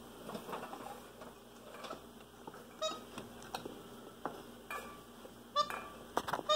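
Light wooden knocks and taps, scattered about once a second, as a capuchin monkey handles and pushes at a small wooden mouse-in-a-box gag toy.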